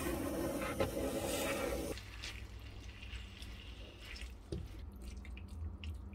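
Water running, as from a kitchen tap, for about two seconds. It cuts off abruptly, leaving a quiet room with a low hum, a few light clicks and a soft knock.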